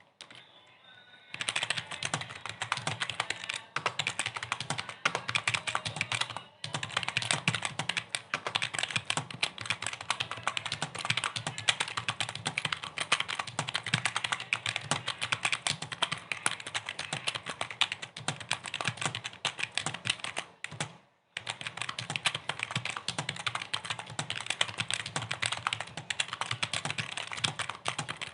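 Rapid typing on a computer keyboard: a dense, continuous run of key clicks, with two brief pauses.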